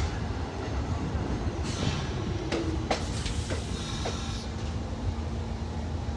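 R46 subway train pulling into the station and slowing to a stop: a steady rumble of wheels on rail with several sharp clicks and a brief hiss about two seconds in, then a steady hum as it comes to rest.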